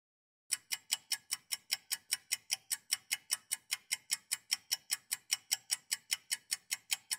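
Countdown-timer ticking sound effect: a fast, even clock-like ticking at about five ticks a second, starting about half a second in.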